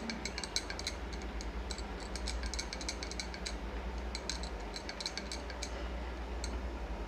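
Quick, light clinks and ticks as hands roll and toss kofta balls in a bowl of cornflour. They come in irregular clusters and die away about six seconds in, over a steady low hum.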